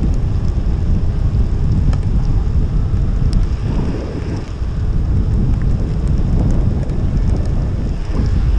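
Heavy wind rumbling and buffeting over a helmet-mounted microphone as a bicycle descends a wet paved road at speed.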